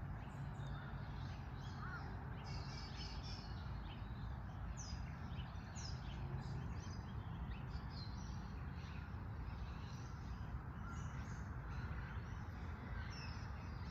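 Several wild birds chirping and calling on and off, in short high notes, over a steady low background rumble.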